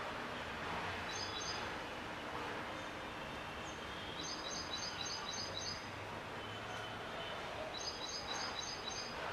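A bird calling in three quick runs of short, high chirps, several notes to each run, over a steady background of outdoor noise.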